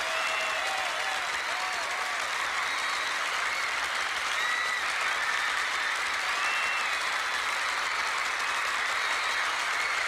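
Audience applauding and cheering in a steady wash, with short high-pitched cries rising and falling over it.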